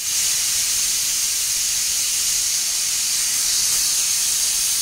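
Stovetop pressure cooker venting steam under pressure while the dal cooks: a loud, steady hiss.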